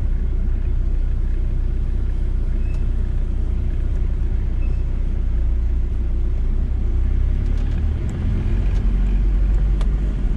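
VW T4 campervan on the move: steady engine and road rumble. The loudness dips briefly about eight seconds in, and the engine note changes.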